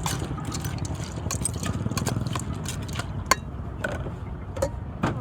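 Utensils clicking and knocking against a bowl as a spicy salad is tossed, over a steady low rumble. The sharpest knock comes a little past halfway.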